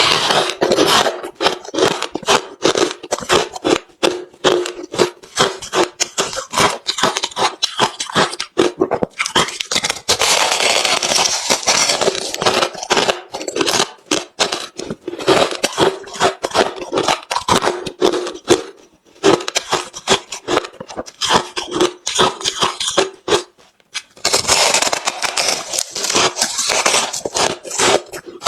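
Close-up chewing and crunching of hard refrozen crushed ice: a dense run of sharp cracks and crackles, with brief pauses about two-thirds of the way through and again later.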